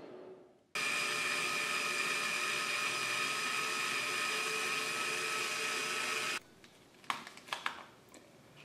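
Motorized power key turning the 5C collet chuck's closer to open the collet: a steady motor whir with a whine, starting abruptly about a second in and cutting off suddenly about six seconds in. A few light clicks of metal parts being handled follow.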